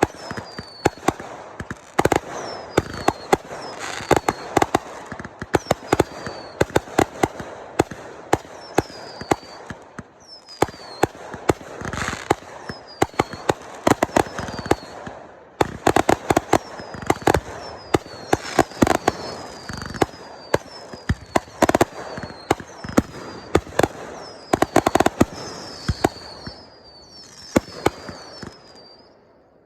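Fireworks going off: a dense run of sharp bangs and crackling pops, many in quick succession, with short falling whistles repeating about once a second.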